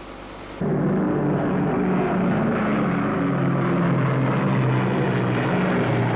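Propeller aircraft engines running with a steady, pitched drone that cuts in abruptly about half a second in.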